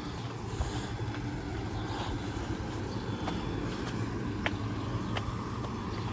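A generator running steadily, giving a continuous low engine hum, with a few light clicks over it.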